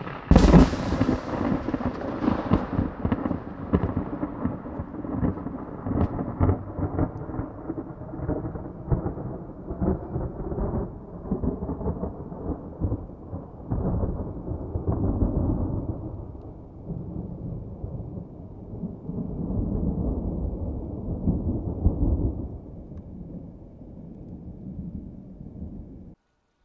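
Loud thunder from a negative cloud-to-ground lightning strike: a sudden sharp crack, then a long rolling rumble full of crackles and booms. The rumble swells twice more and cuts off suddenly near the end.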